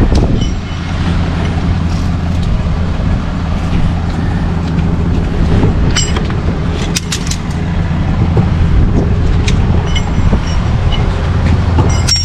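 A vehicle engine running steadily, a constant low hum, with a few sharp metallic clicks about six to seven seconds in.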